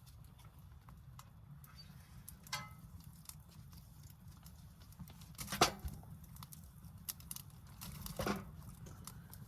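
Camp gear being handled at close range: rustling and light clicks, with sharper knocks about 2.5, 5.5 and 8 seconds in, the middle one the loudest, over a steady low rumble.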